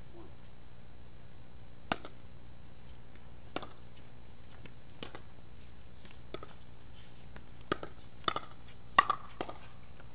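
Pickleball paddles striking the plastic ball during a rally: a run of sharp single hits about a second and a half apart, coming quicker near the end, where the loudest hits fall.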